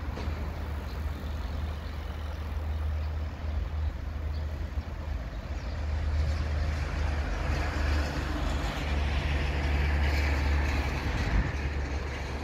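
Freight train hauled by two electric locomotives approaching slowly: a steady low rumble, with a hiss that grows louder from about six seconds in.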